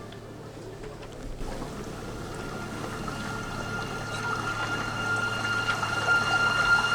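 A rushing, water-like noise with a held steady tone in the dance's backing music, swelling gradually louder between sung sections.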